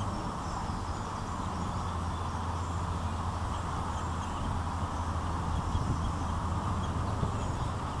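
Steady outdoor background rumble and hiss, with faint, short, high bird chirps scattered through it.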